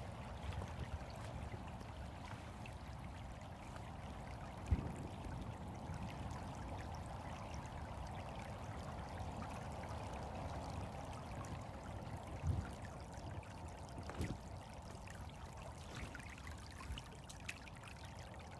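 Creek water flowing and trickling steadily, an even rushing sound, with a few soft low thumps about five, twelve and fourteen seconds in.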